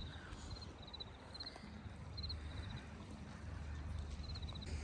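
Faint outdoor ambience: a low steady rumble with short chirps of three or four quick high notes repeating every half second or so.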